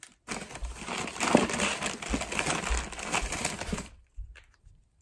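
Small screw-lid jars clicking and rustling against paper bags and cardboard as they are set down in a shipping box. The handling noise stops about four seconds in.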